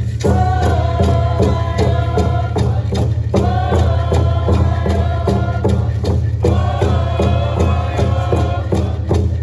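Live band music with a steady beat over a heavy bass, and a lead part playing long held notes in phrases that break off about three seconds in and again after six.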